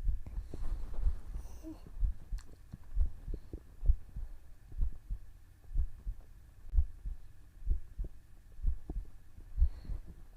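Human heartbeat recorded close up: deep, steady thumps about once a second, an even resting pulse.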